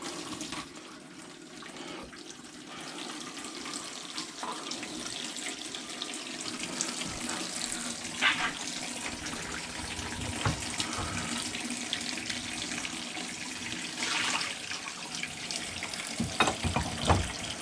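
Water running steadily from an open tap, draining down the loft cold-water tank, with a few knocks and clatters.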